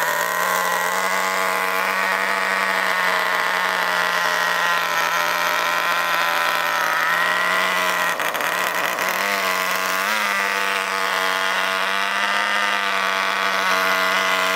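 Small two-stroke nitro glow engine of an RC car running at a steady high pitch, with a few brief throttle changes about eight to ten seconds in.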